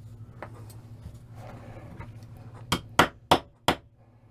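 A small hammer tapping a part into place on a Ruger SP101 revolver's frame: four quick, sharp taps in about a second, starting past the middle, after some faint handling clicks.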